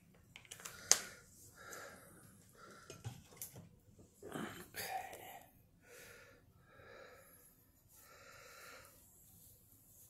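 A woman's heavy breathing, a series of breaths about a second apart, with a sharp click about a second in and a louder, deeper breath around four and a half seconds in.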